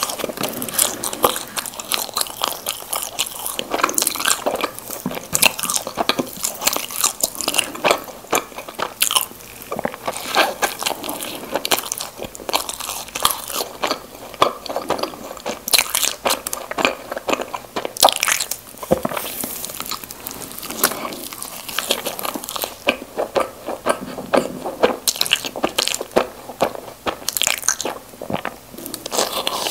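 Close-miked biting and chewing of Krispy Kreme doughnuts: a dense run of small mouth clicks and smacks.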